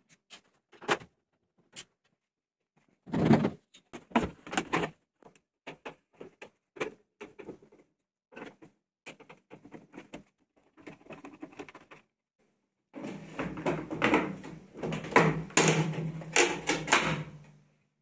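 Vestel washing machine's top cover and plastic control panel being unscrewed and taken off by hand: scattered clicks and knocks of screwdriver and panels, then a few seconds of dense plastic clattering and rubbing near the end as the control panel is worked loose.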